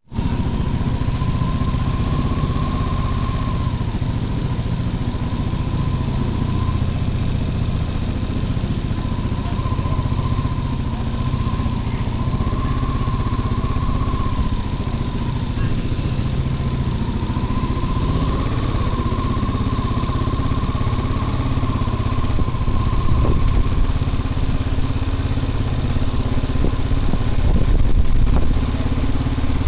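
Motorcycle engine running at low road speed, heard from the rider's seat as a steady rumble with a thin whine that wavers gently in pitch.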